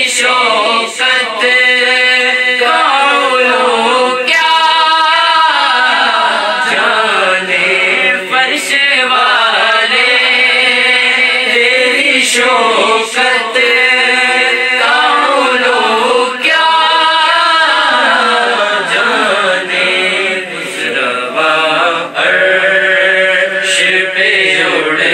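A naat, Urdu devotional poetry, sung with long, ornamented, wavering notes.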